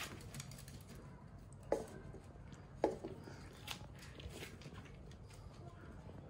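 Dogs snapping up treats and a miniature pinscher nosing into a paper cup on a wooden deck: two sharp knocks about a second apart, then a few lighter clicks.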